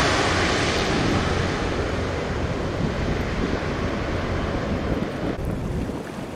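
A USMC KC-130J Hercules's four Rolls-Royce AE 2100 turboprops running as it passes low on approach to land, fading away. About five seconds in, this gives way abruptly to wind noise on the microphone.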